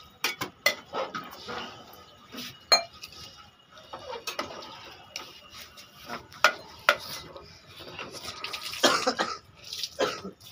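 Metal ladle stirring a thick masala in an aluminium cooking pot, scraping and clinking against the pot's sides in irregular knocks.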